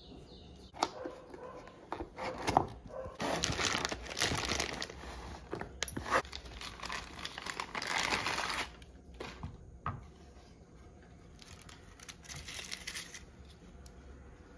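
Plastic wrapping and tissue paper crinkling and rustling as a cast iron frying pan is unpacked, with a few sharp knocks. The rustling is loudest in the middle and softer near the end.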